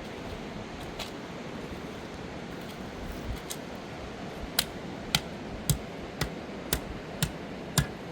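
A run of sharp knocks, about two a second, starting about four and a half seconds in, over a steady rushing noise.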